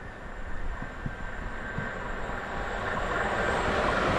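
Express electric train approaching on the main line, its rumble and rushing rail noise growing steadily louder, with a thin steady whine over it.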